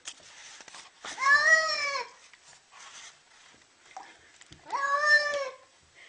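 Domestic cat being bathed, giving two long, drawn-out meows about three seconds apart. Each meow rises and then falls in pitch, like the Turkish name 'Davut'.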